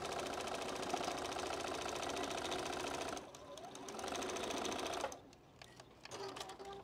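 Juki domestic sewing machine stitching a seam at a fast, steady rate. It eases off briefly about three seconds in, runs again, then stops about five seconds in.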